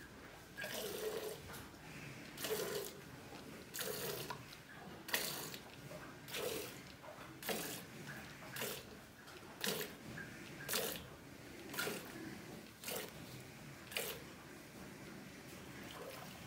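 Jets of milk squirting from a cow's teats into a steel pail during hand milking, about one squirt a second, stopping a couple of seconds before the end.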